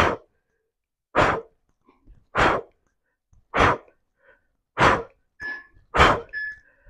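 A man's forceful exhalations, one sharp puff of breath with each twist of a bicycle crunch, in an even rhythm of about one every 1.2 seconds, with a couple of fainter breaths in between near the end.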